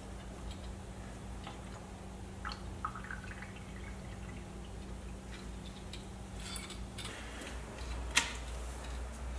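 Brake fluid dripping and trickling through a clear bleed hose into a catch bottle while the front brake caliper is pressure-bled, over a low steady hum. There are scattered small clicks, and one sharp click about eight seconds in.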